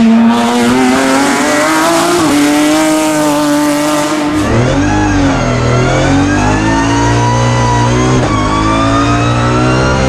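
BMW E36 M3 race car's S54 straight-six engine revving hard under acceleration: first a steady high note, then after about four seconds a cut to a closer, in-car sound whose pitch climbs steadily. About eight seconds in the pitch dips briefly at a gear change, then climbs again.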